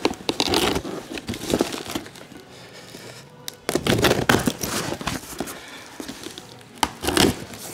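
Cardboard box being opened by hand: packing tape slit with a pocket knife, and the cardboard flaps and paper crinkling and rustling in several bursts.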